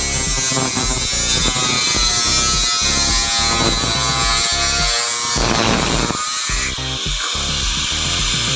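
Electric angle grinder running with its disc cutting through a galvanized steel purlin, a steady motor whine, with background music over it.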